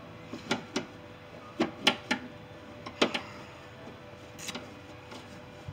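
Metal hand tool clicking and knocking against the latch-rod clip and sheet-metal inner panel of a Ford E350 van's rear cargo door while prying at the clip's retaining fingers: a run of irregular sharp clicks and taps, the loudest about two and three seconds in.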